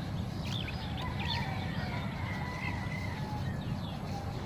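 Birds chirping over a steady low rumble: a few quick up-and-down chirps in the first second and a half, then a thinner held call.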